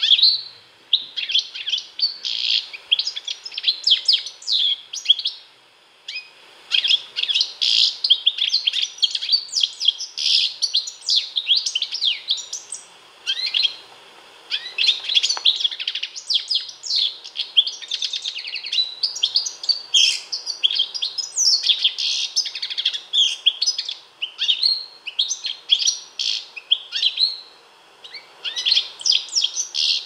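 European goldfinch singing: long runs of rapid, high twittering chirps and trills, broken by a few short pauses.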